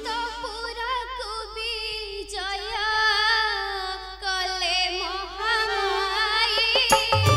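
A single high voice sings a slow, ornamented melody with wavering pitch and no accompaniment. Drums and other instruments come in near the end.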